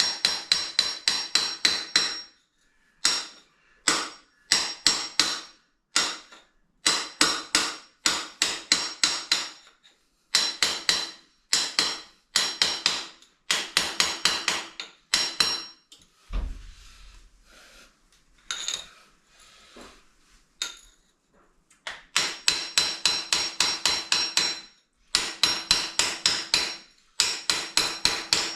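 A hammer beats in quick runs on a steel chisel-type tool, about four or five ringing blows a second, chipping at the cement that holds a toilet pan to the floor. The blows stop for several seconds after a low thump a little past the middle, then start again.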